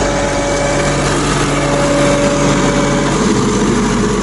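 Log skidder's diesel engine running steadily close by; its tone shifts about three seconds in, as the engine speed changes.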